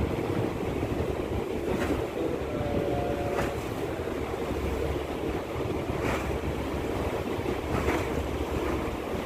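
Steady rumble and rush of a ro-ro ferry under way across a lake, with water noise and wind on the microphone. A few faint knocks come through.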